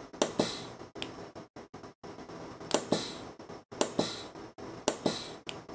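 Pneumatic solder paste dispenser cycling: its solenoid valve gives a sharp click followed by a short hiss of air, about four times at uneven spacing. The paste is not coming out, which the owner thinks is a nozzle blocked with old paste.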